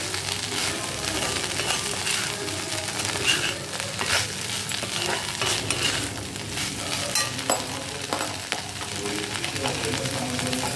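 Chopped okra and grated coconut sizzling in oil in a kadai while a spatula stirs and scrapes them around the pan, with repeated irregular scraping strokes over the steady sizzle.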